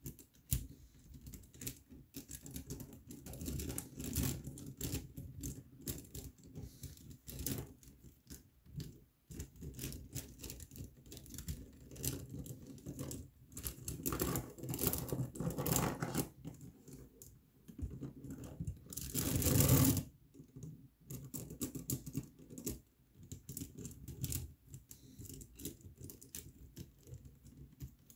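Plastic K'NEX pieces clicking and rattling as a plastic rope is worked by hand through the rods and loops of a Baguenaudier puzzle, with a louder rustling scrape lasting about a second two-thirds of the way through.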